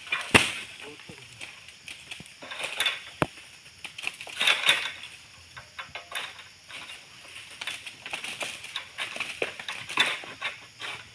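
Long-handled pole sickle cutting at an oil palm's fronds, with irregular sharp knocks and scrapes and the rustle of stiff palm leaves. The strongest knocks come about half a second in and again a little after three seconds.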